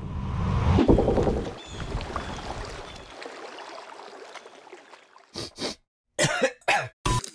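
End-title sound effects: a low rushing whoosh swells about a second in and fades away, then near the end comes a quick run of short coughs from a cartoon logo sting.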